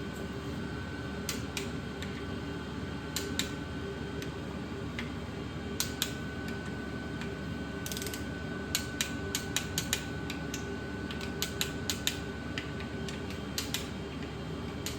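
Ratchet wrench clicking in short irregular runs while the oil pump bolts on a 6.0 L LS V8 are tightened down, with the busiest run of clicks in the middle of the stretch, over a steady low hum.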